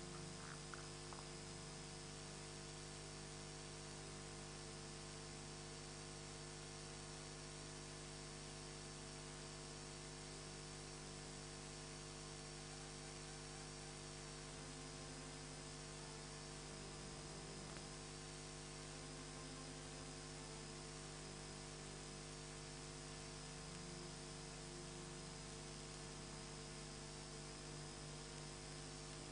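Steady electrical hum over a layer of hiss: the background noise of the recording system, with no speech.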